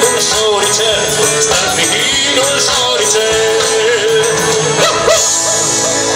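Live rock band playing loud through an outdoor PA, with a wavering sung melody over guitars and drums. About five seconds in, the band moves onto a held, sustained chord.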